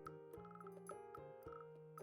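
Faint background music: soft held notes changing pitch every half second or so, with light ticking accents.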